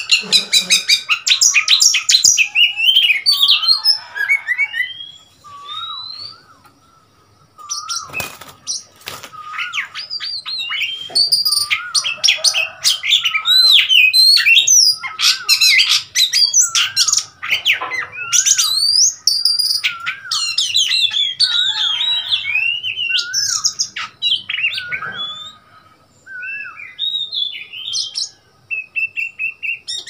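Oriental magpie-robin singing: a varied run of clear whistled phrases mixed with harsh chattering notes. The song breaks off briefly twice, about six seconds in and again near the end.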